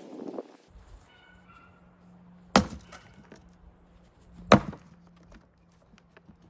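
Two strikes of a Fiskars splitting axe into plum wood, about two seconds apart, each a sharp loud chop.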